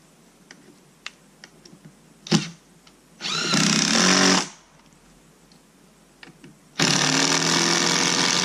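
Cordless drill driving screws into pallet wood in two runs: a short one about three seconds in, and a longer one starting near the end. A sharp knock comes just before the first run.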